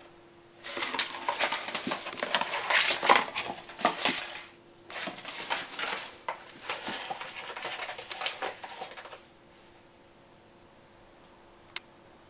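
Small cardboard biscuit box scraping and clattering across a hard floor as a kitten shoves it along with its head inside. The noise comes in two bursts of about four seconds each. A single sharp tick follows near the end.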